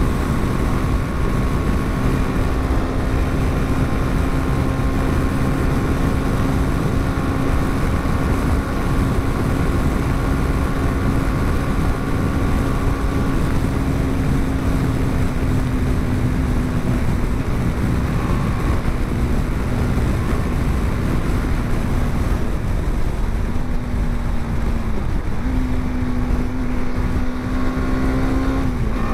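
BMW G 310 GS's 313 cc single-cylinder engine running at a steady highway cruise under heavy wind rush. Its note holds level, then dips and comes back up twice near the end.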